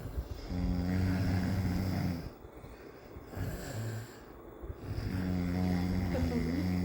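A man snoring heavily in his sleep: two long, loud snores about four and a half seconds apart, with a short, softer breath between them.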